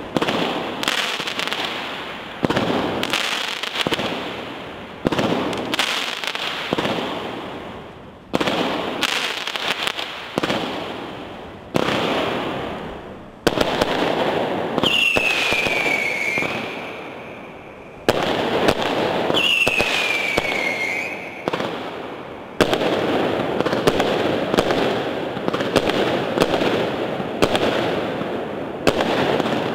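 Lidl 'Unforgettable' 56-shot fireworks battery firing: a quick series of shots and bursts every second or two, each dying away in crackle. Two shots about halfway through carry a falling whistle, and from about two-thirds of the way in the shots run together into continuous crackling.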